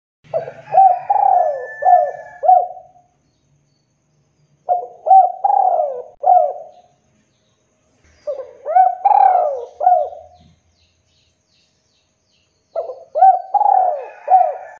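Spotted dove cooing: four phrases of several short, arching coos each, every phrase about two seconds long with short pauses between them; the last phrase is cut off at the end.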